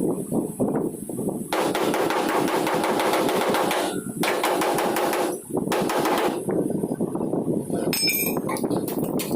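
Hammering on metal bodywork: many quick blows in a row, with a few brief pauses.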